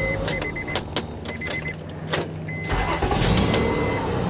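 2003 Honda Odyssey 3.5 V6 shut off, a few clicks, then cranked by its new starter and started again about two and a half seconds in, flaring up and settling into idle. A high chime beeps on and off throughout.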